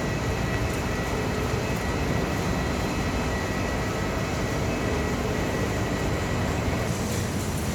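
Hot-air furnace plant with its blower fan running steadily: a dense low rushing noise with a faint high whine held throughout.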